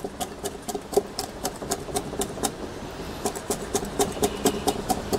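Heavy cleaver chopping peppers and herbs fine on a wooden cutting board: a steady run of quick knocks, about four to five a second.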